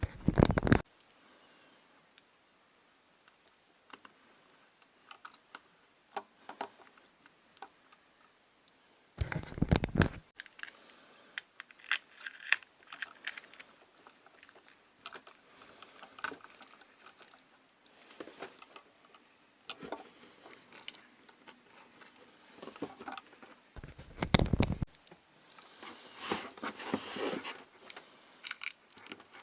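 Close-up handling noises: scattered small clicks and crinkling, with three loud knocks at the start, about nine seconds in and about twenty-four seconds in.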